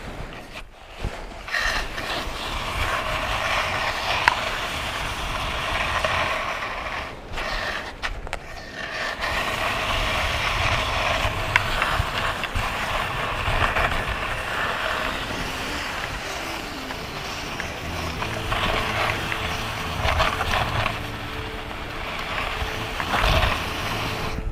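A person glissading down a steep snow chute on their backside: a continuous scraping hiss of clothing and boots sliding over snow and small ice chunks, with the ice axe's spike dragging in the snow as a brake. The sliding breaks off briefly about seven seconds in and again a second later, then carries on. Music comes in faintly near the end.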